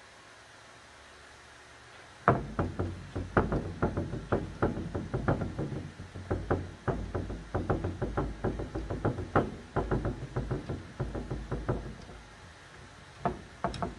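Rapid, irregular knocking on the wooden cupboard, about four or five taps a second, starting about two seconds in and stopping about two seconds before the end, with a few more taps near the end. It is the sound of paint being dabbed or stippled onto the cupboard.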